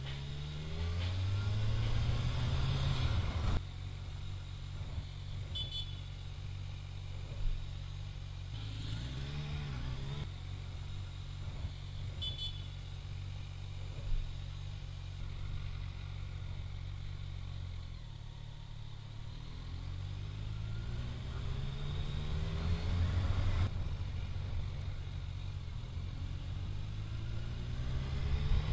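Sport motorcycle's engine heard from the rider's seat as it accelerates, the note climbing in pitch and dropping off sharply at each throttle-off or gear change. It settles into steady cruising between the pulls.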